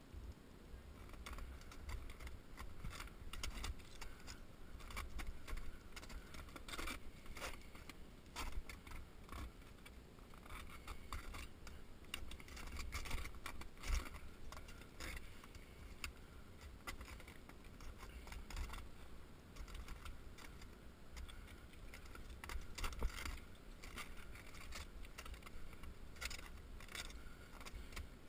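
Ice climber's crampons and gear knocking, scraping and clinking against waterfall ice in irregular strikes, over a steady low rumble.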